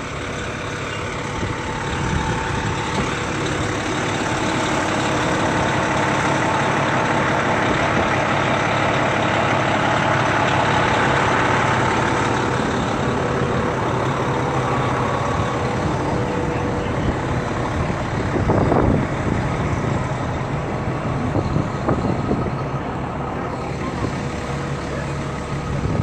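Fire trucks' engines idling steadily at the scene, swelling louder through the first half, with a few brief thumps in the second half.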